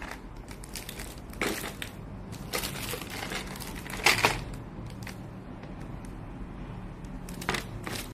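Plastic wrapping film crinkling and crackling as a wrapped plastic storage rack is handled, in irregular spurts, loudest about four seconds in.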